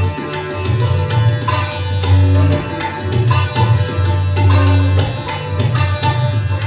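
Sitar playing a Rajakhani gat in Raga Kalawati, with tabla accompaniment whose bass drum gives repeated deep strokes under the plucked, ringing sitar notes.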